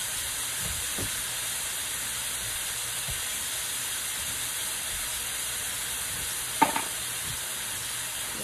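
Diced sweet onions sizzling in melted margarine in a wok: a steady frying hiss. A single sharp knock sounds about two-thirds of the way through.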